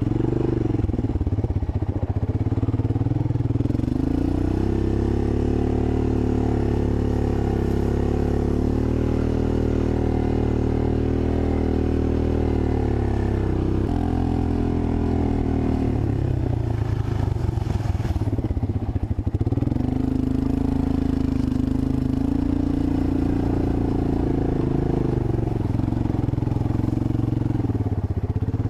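1985 Honda ATC 250SX three-wheeler's single-cylinder engine running under way, its pitch climbing a few seconds in and holding steady, turning rougher and unsteady a little past halfway, then settling to a steady note again.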